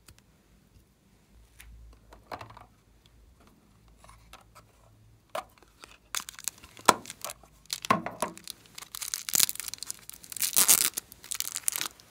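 Small clear plastic packet being crinkled and torn open by hand, loudest in the last few seconds, after quieter clicks and scrapes of plastic containers being handled.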